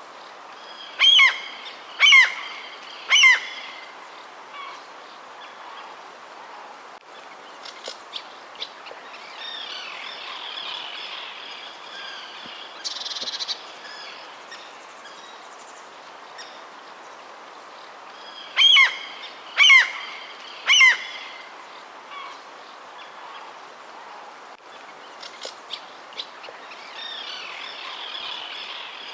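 Wild birds calling: a loud call given three times about a second apart, twice over, with softer chirps in between over a steady background hiss.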